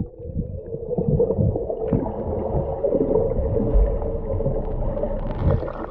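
Muffled underwater sound picked up by a GoPro HERO7 White submerged in a swimming pool: low rumbling water noise and gurgling, with a steady hum running through it.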